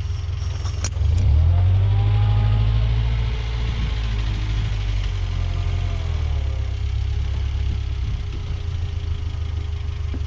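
Rock-crawling 4x4's engine running at low speed with a sharp knock just under a second in. The engine is then revved louder for a couple of seconds and eases back to a steady run, as the truck backs off a rock it was hung up on by its differential.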